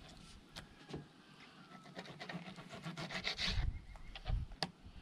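Knife cutting raw catfish fillets into pieces on a plastic cutting board: scattered taps and scrapes of the blade through the flesh and against the board, with a low thump near the end.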